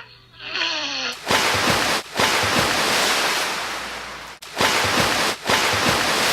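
Loud rushing, wind-like noise in four long gusts with brief breaks between them, opened by a short falling whistle-like tone.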